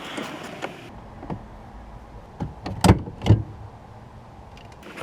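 Work noise on a car: a few light clicks, then two sharp knocks about half a second apart near the middle.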